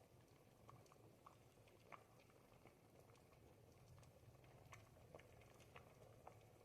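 Ribollita, a thick Tuscan bread-and-vegetable soup, simmering in a pot: faint, irregular soft pops and bubbles over a low steady hum.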